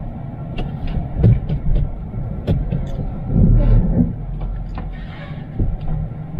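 Camper van driving off slowly, heard from inside the cab: a low steady engine and road rumble with frequent rattles and clicks from the cabin fittings, and a heavier jolt about three and a half seconds in.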